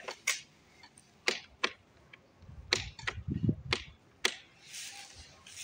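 Footsteps on a hard path: about seven irregular sharp scuffs and clicks, with a short hiss of movement near the end.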